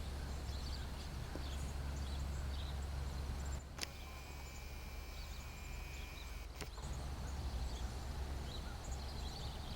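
Outdoor ambience over a steady low rumble, with faint, scattered high bird chirps. Near the middle, two clicks about three seconds apart frame a quieter stretch that carries a faint steady high tone.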